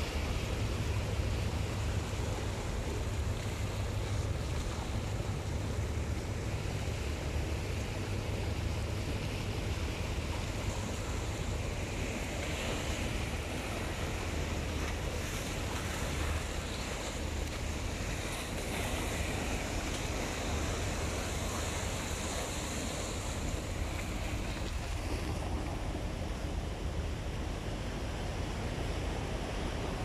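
Small sea waves washing and foaming over shoreline rocks, a continuous hiss of surf that swells in the middle, over a steady low rumble of wind on the microphone.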